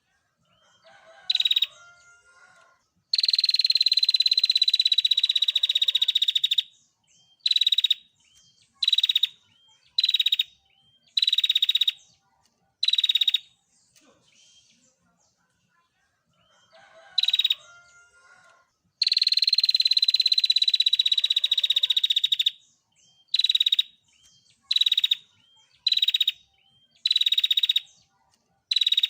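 Female prinia (prenjak) calling: a long, rapid, dry trill lasting about three and a half seconds, then a run of short trill bursts about a second apart, the same sequence coming round again about halfway through.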